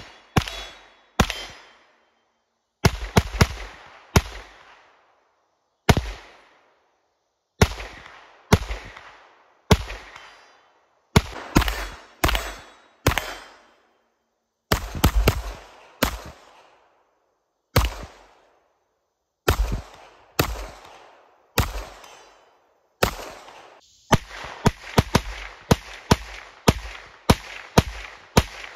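Semi-automatic shots from a Palmetto State Armory AK-V 9mm carbine, fired singly and in quick pairs, each with an echoing tail. In the last five seconds the shots come in faster strings.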